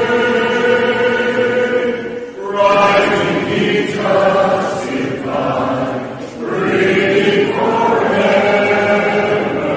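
A choir singing a hymn a cappella in several-part harmony, in phrases broken by short breaths about two and a half seconds in and again about six seconds in.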